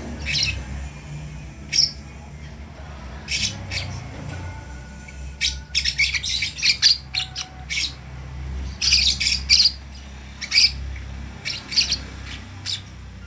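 Lovebird chicks chirping: short, high calls in quick clusters of several at a time, over a steady low hum.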